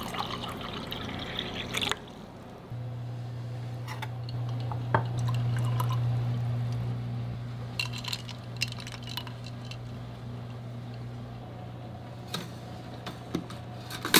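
Liquid poured into glassware, filling a glass, with a few light clinks of glass. A steady low hum runs underneath from a few seconds in.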